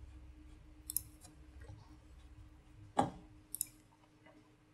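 A few computer mouse clicks, the loudest one about three seconds in, over a faint steady hum.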